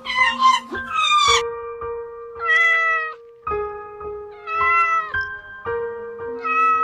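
A cat meowing repeatedly, each meow a short call about half a second long that bends in pitch, over background music with sustained notes.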